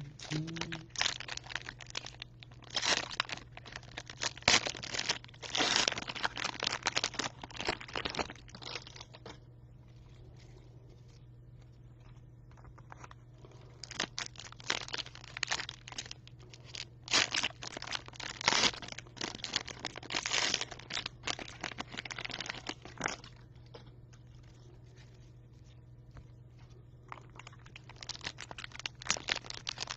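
Cellophane wrappers of trading-card cello packs being torn open and crinkled by hand, with cards being handled, in several bursts of a few seconds with quieter pauses between.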